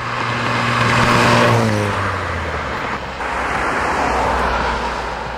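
Road traffic: a car drives past, its engine note dropping in pitch as it goes by about one and a half seconds in, then a second swell of traffic noise that fades away.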